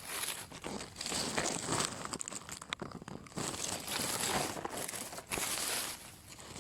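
Irregular crinkling and rustling in uneven bursts, with a few sharp crackles, as dry material is handled up close.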